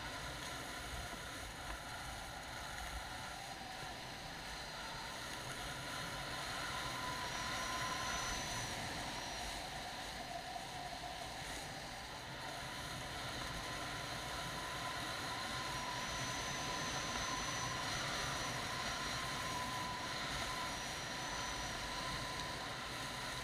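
Hammerhead sled sliding fast over groomed corduroy snow: a steady hiss and rumble of the runners on the snow, with a thin whine that comes and goes.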